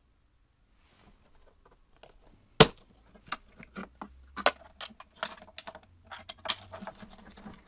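Irregular clicks, taps and rattles of small parts being handled and fitted on a headlight unit, with one sharp loud click about two and a half seconds in and a busier run of knocks after it.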